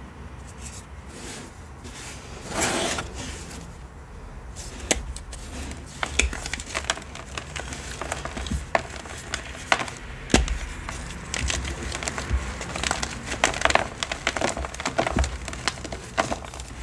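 A block of gym chalk broken and crumbled in the hands: sharp cracks and crisp crunching crumbles. It is quieter for the first few seconds, then the crackling comes thick and fast from about five seconds in.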